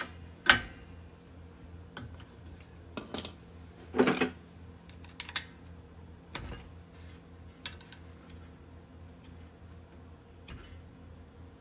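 Metal hand tool clicking and clinking against a steel cotter pin and the castle nut of a lower ball joint as the pin's legs are bent over: a handful of separate sharp clicks, the loudest about four seconds in, over a low steady hum.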